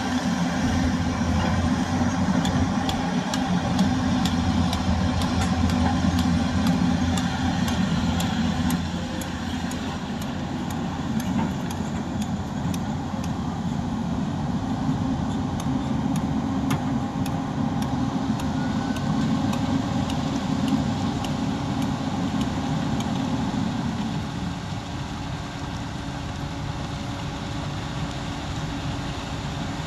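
Diesel engine of heavy construction machinery running steadily, easing off a little about nine seconds in and again near the end, with faint clicking over it.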